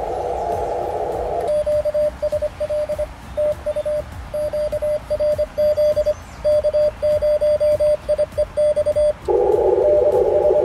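ICOM IC-7300 transceiver in CW mode: band hiss through a narrow filter, then about a second and a half in the hiss cuts out and a single-pitch Morse code sidetone keys out a message of dots and dashes for about seven seconds, the station sending CW. Near the end the receiver hiss comes back.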